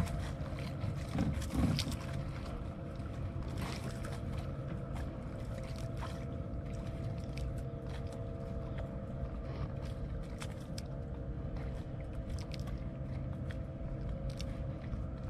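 Jukung outrigger boat's motor running steadily under way, with a few scattered light clicks.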